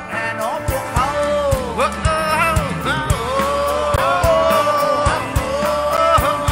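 Live band music: a male voice singing with vibrato over electric guitar and accordion, with a steady drum beat.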